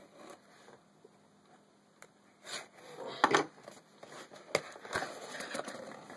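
A cardboard box being opened by hand. It is quiet for the first two seconds, then the flaps scrape and rustle with a few sharp clicks, loudest about three seconds in.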